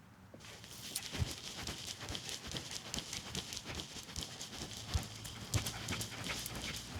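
Footsteps on a hard path: quick, irregular clicking and tapping steps that start about half a second in.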